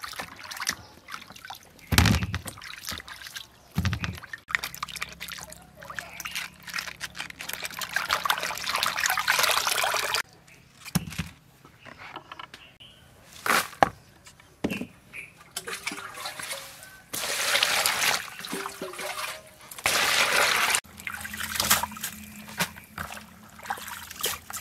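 Water pouring and splashing over vegetables being rinsed in a plastic colander, in several runs of a few seconds each. Sharp knocks and handling noises come between the runs.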